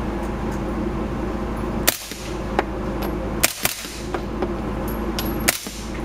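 Three single shots from a suppressed HK MP5-SD 9 mm submachine gun fired in semi-auto, about a second and a half to two seconds apart, over a steady low hum.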